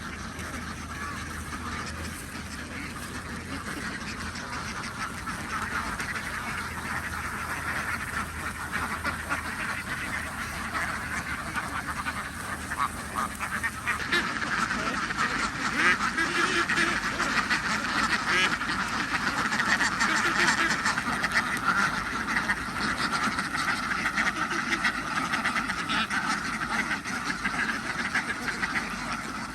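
A flock of ducks quacking continuously in a dense chatter, growing louder about halfway through.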